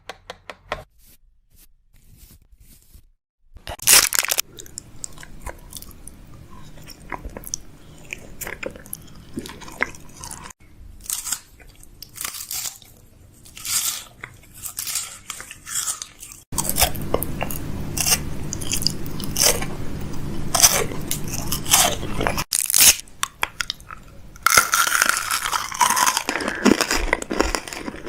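A long run of crisp crunching and crackling clicks, coming in irregular clusters and densest near the end, with a low steady hum underneath through the middle part.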